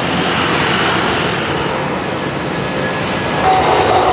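Twin-engine jet airliners at takeoff thrust: a Boeing 787 climbing out with a steady jet noise. About three and a half seconds in, a louder, closer Boeing 777 on its takeoff roll takes over, with a steady whine over the jet noise.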